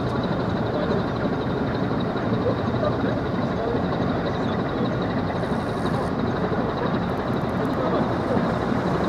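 Steady low rumble and rushing water as a container ship passes close by, its engine running and its bow wave breaking along the hull.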